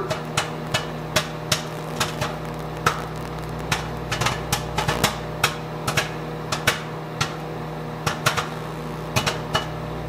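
Popcorn kernels popping in a paper lunch bag inside a running microwave oven: sharp, irregular pops, two or three a second, over the oven's steady hum. The popping has slowed near the end of the batch, a sign that it is nearly time to stop.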